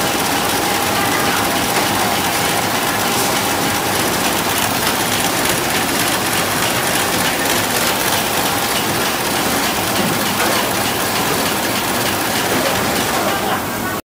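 Automatic snack-bar feeder and flow-wrap packing machine running at production speed: a steady, dense mechanical clatter of gears and moving parts, with a faint steady whine in the first half. It cuts off suddenly near the end.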